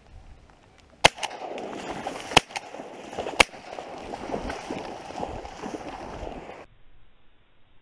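Three shotgun blasts from a semi-automatic shotgun, fired at flying ducks about a second apart, with a rustling noise between and after the shots.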